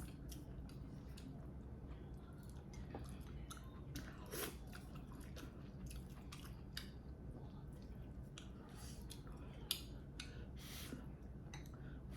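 A person chewing food with soft wet mouth clicks and smacks scattered irregularly, one sharper click near the end.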